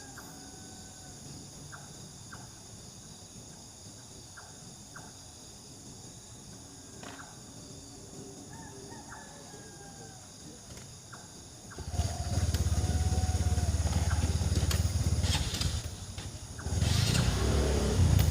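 Night ambience of steady insect trilling with small scattered chirps, then about twelve seconds in a loud low rumble starts suddenly, eases briefly and comes back near the end.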